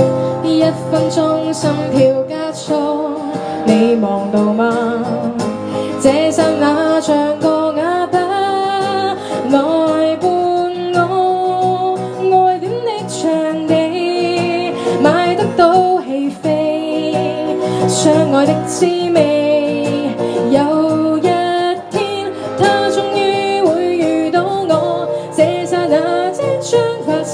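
A woman singing a song live into a microphone, accompanying herself on a strummed acoustic guitar.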